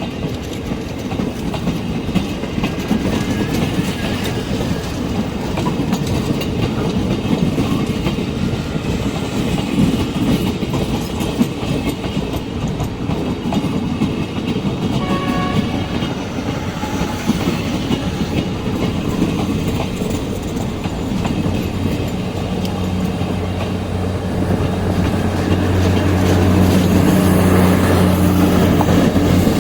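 Maitree Express passenger train rolling into the station, its wheels clattering over the rail joints, with a short horn sounding about halfway through. Near the end a steady low engine drone comes in and grows louder.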